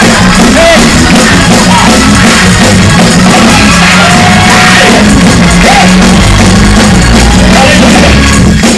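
Loud live church music, heavily distorted, with shouting and singing voices over it.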